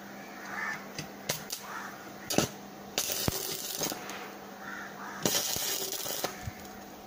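Electric arc welder striking two short tack welds, a crackling hiss about three seconds in and again a little past five seconds, each lasting about a second. A few sharp metal clicks come before them.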